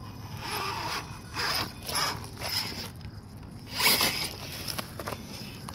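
1.9-scale RC rock crawler's electric motor and geared drivetrain whirring in several short bursts as it is throttled on and off while crawling, the loudest burst about four seconds in.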